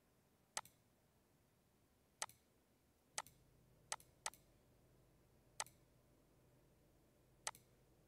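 Computer mouse button clicking: seven sharp single clicks at uneven intervals over near silence, several followed by a fainter release click. A faint low hum comes in about three seconds in.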